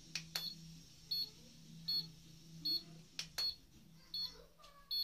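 Handheld mini HIFU face-tightening device beeping in short high tones about every three-quarters of a second, over a low steady hum, with a few sharp clicks between the beeps.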